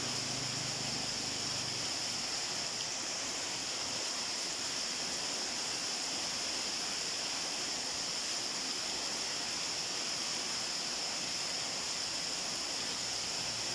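Steady rain falling, a continuous even hiss with no breaks.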